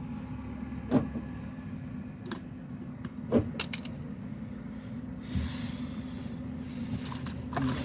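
Scattered metallic clinks and knocks from tools and brake parts being handled on a car's rear brakes, over a steady low hum, with a short hiss about five seconds in.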